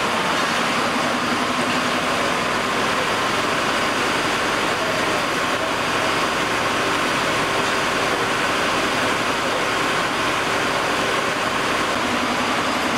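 A fire engine's engine running steadily, a constant drone at an even level.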